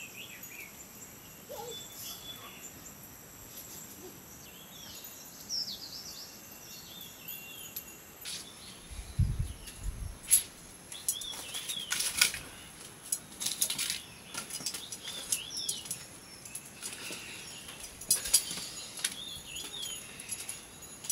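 Small birds chirping repeatedly in short rising and falling calls. From about eight seconds in, a series of sharp clicks and knocks joins them, with a low thump shortly after.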